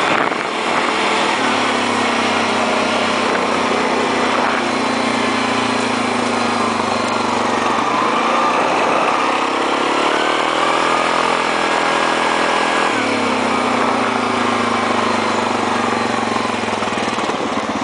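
2008 Yamaha Grizzly 700 ATV's single-cylinder four-stroke engine running under way, its pitch holding steady, climbing about halfway through, staying higher, then dropping back about three quarters of the way in, over a steady rush of wind noise.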